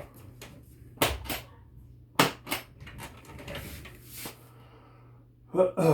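Hard guitar case being handled and its latches snapped open: a series of sharp clicks and knocks, the loudest pairs about one and two seconds in, then lighter taps.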